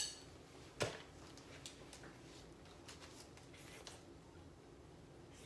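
Quiet room with faint scratching of pens on notepad paper and a single sharp knock about a second in.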